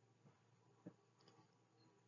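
Near silence: room tone with a faint steady low hum and a few faint clicks.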